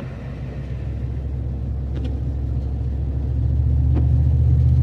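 Low, steady rumble of a Dodge Ram 1500 pickup driving, heard from inside the cab, growing louder over the few seconds.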